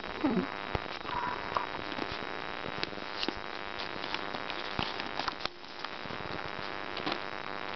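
Puppies scuffling and play-wrestling on a blanket: light rustling and many small clicks, with a brief puppy whine about a third of a second in. A steady hiss lies under it all.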